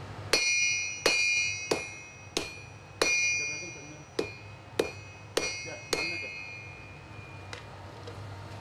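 Sledgehammer blows on red-hot steel on an anvil, flattening the forged petals of a Yakut ice chisel. There are about nine strikes, roughly one every two-thirds of a second, and each leaves the anvil ringing. They stop about six seconds in, with one faint blow after.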